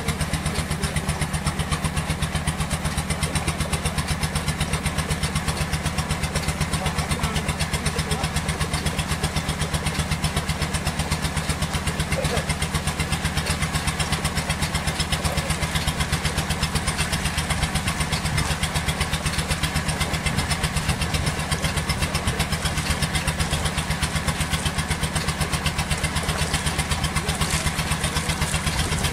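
An engine running steadily at an even speed, its firing pulses coming fast and regular.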